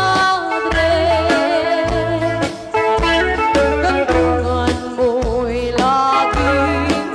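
Live band playing an Ilocano waltz (balse): a woman sings the melody with vibrato over electric guitar, bass and drum kit, the bass notes falling in a steady beat.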